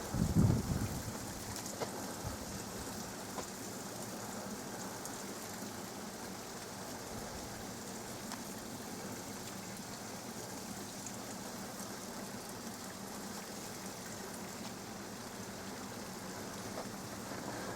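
Steady, even rush of running river water, a hiss like rain. A brief low rumble of wind on the microphone in the first second.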